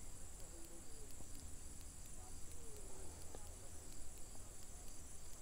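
Faint steady high-pitched chirring of insects such as crickets, with faint evenly spaced ticks and a low hum beneath.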